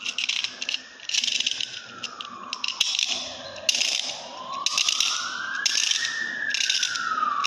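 Clockwork wind-up motor from a toy car being wound by its key: quick bursts of ratchet clicking with each turn, about half a dozen bursts. Underneath, a smooth tone slowly rises and falls in pitch.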